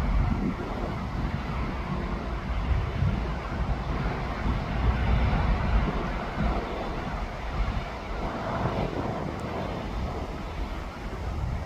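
Wind buffeting the microphone over a steady low rumble of vehicle engines.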